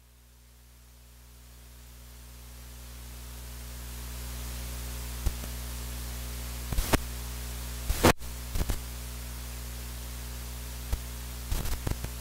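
Electrical hum and hiss on the recording, fading in over the first four seconds or so and then holding steady, broken from about five seconds in by a few sharp clicks and crackles.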